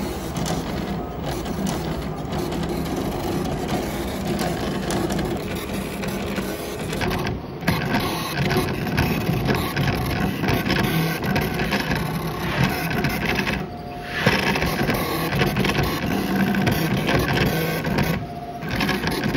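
Ioline twill cutter cutting twill fabric: a fast, fine mechanical rattle from the cutting head over a low motor hum, steady except for three short lulls.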